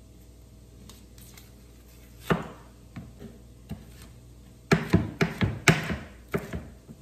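Kitchen knife chopping a green pepper on a plastic cutting board: one sharp cut about two seconds in, a few light taps, then a quick run of chops near the end.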